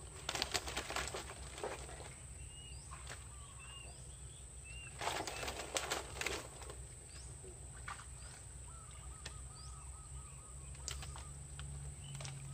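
Water and mud splashing in two bursts, one near the start and one about five seconds in, in a drained fish pond where fish are being caught, with small birds chirping briefly several times.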